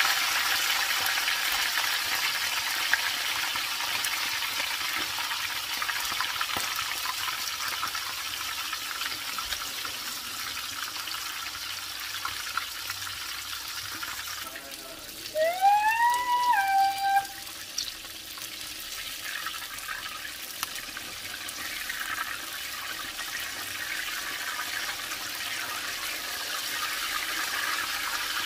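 Turkey pieces deep frying in a cast-iron skillet of hot oil: a steady hiss and crackle of bubbling oil. About halfway through, a short pitched sound rises and then holds for about two seconds, louder than the frying.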